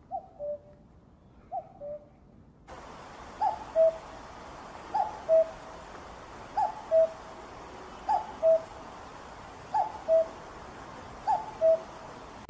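Common cuckoo giving its two-note falling 'cuck-oo' call eight times, evenly about every one and a half seconds. About three seconds in, the recording switches to a louder one with a steady hiss behind the calls.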